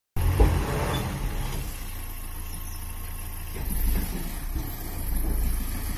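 Diesel engine of a tipper truck running steadily while its hydraulic hoist holds the body raised to dump sand, swelling in level twice in the second half. The sound cuts out for an instant at the very start.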